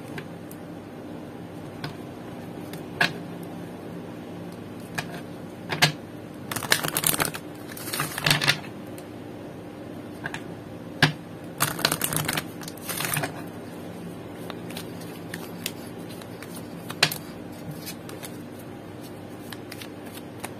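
A deck of oracle cards being shuffled by hand: scattered taps and clicks of cards, with a few short rustling bursts of cards sliding through the hands between about six and thirteen seconds in. A faint steady hum runs underneath.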